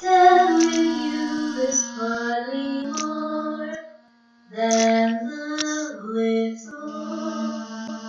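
A cappella female singing in layered voices, processed with a sound editing program: a slow melody moving over a held low note. The voices stop for about half a second near the middle, then come back in.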